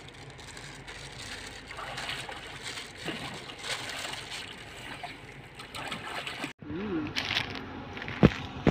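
River water splashing and sloshing as a person bathes standing in it. Then, after a short break about six and a half seconds in, a brief voice and a sharp click.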